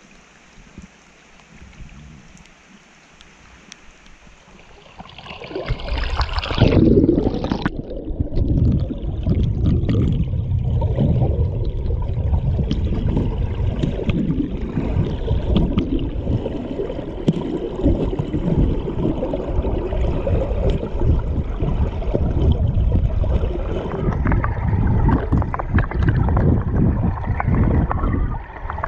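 Faint water ambience for the first few seconds, then a splash as the camera goes under about six seconds in, followed by loud, muffled underwater rumbling of water moving around the camera as the diver searches the river bottom.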